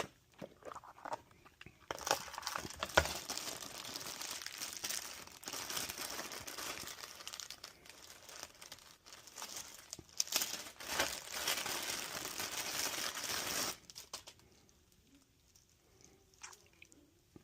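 Plastic packaging crinkling and rustling as the adapter leads are unwrapped and handled, with scattered light clicks. It starts after a few ticks and stops suddenly about three-quarters of the way through.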